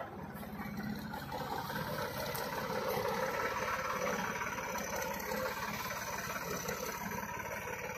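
TAFE 9500 tractor's diesel engine running steadily as the tractor-mounted backhoe loader drives past, growing a little louder midway and then easing off.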